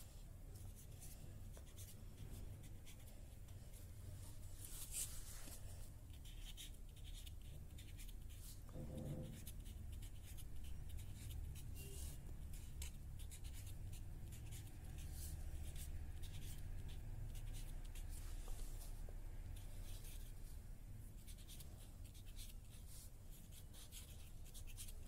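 A pen scratching on paper in many short strokes as numbers are written, over a low steady hum.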